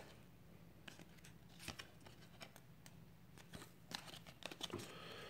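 Faint scattered clicks and soft rustles of a stack of football trading cards being slid and flipped through by hand.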